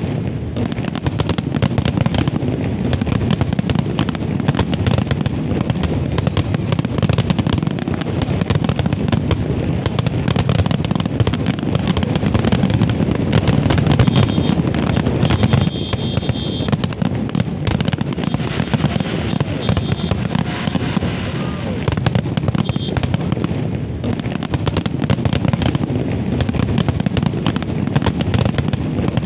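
Aerial fireworks display going off: many bangs and crackles in quick succession, without a break.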